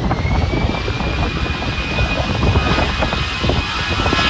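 Jet engines of an easyJet Airbus A320-family airliner running at high power on the runway, their whine climbing in pitch in the first second and then holding steady. Underneath is a low, uneven rumble of gusty wind on the microphone.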